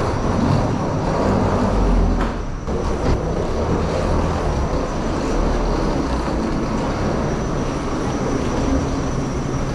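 Steady low rumble and hiss of airport machinery heard inside a jet bridge at an airliner's door, with a couple of faint knocks.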